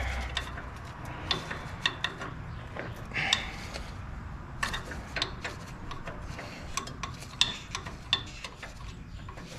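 Irregular light metallic clicks and knocks, with a short scrape about three seconds in, as suspension parts are worked by hand to pull the control arm down past the brake line.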